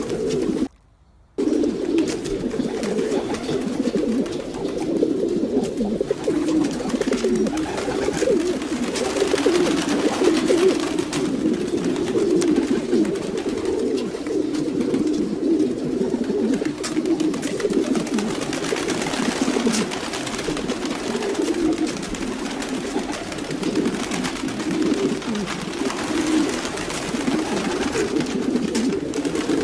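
Many domestic pigeons cooing at once: dense, overlapping low coos that go on without a break, except for a short drop to silence about a second in.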